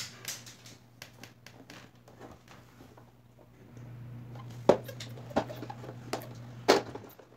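Plastic front bezel of an LED TV being pried and lifted off the screen panel by hand: scattered light plastic clicks, with two sharper snaps in the second half.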